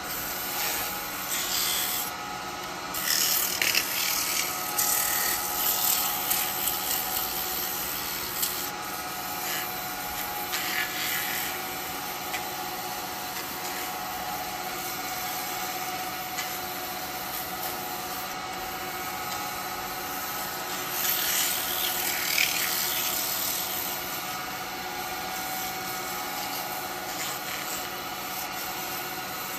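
Hand sanding on a running wood lathe: sandpaper held against a spinning alder workpiece gives a rasping hiss that swells and eases several times, over the steady hum of the lathe motor.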